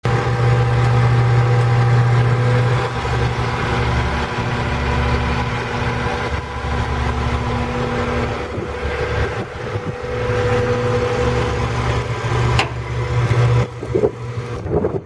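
Caterpillar 3126 inline-six diesel engine of a Peterbilt 330 refuse truck running steadily at idle. One sharp click sounds late on.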